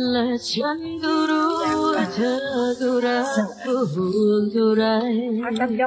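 Background music: a song with a sung melody over steady held backing tones.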